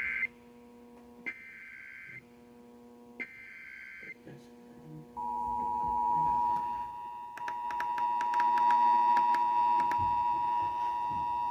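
Emergency Alert System SAME header data bursts: the tail of one screeching burst, then two more about two seconds apart. About five seconds in, the steady two-tone EAS attention signal starts and holds, with a run of sharp clicks over it for a couple of seconds.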